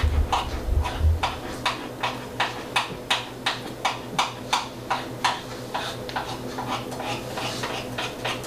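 Waffle batter being beaten by hand in a bowl: short, sharp strokes of the utensil against the bowl in an even rhythm, about three a second, over a faint steady hum.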